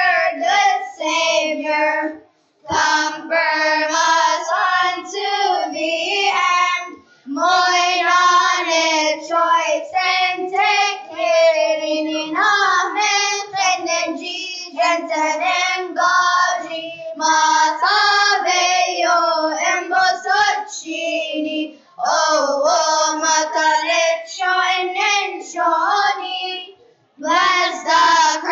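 Children's choir singing together, picked up through handheld microphones, in phrases broken by short pauses.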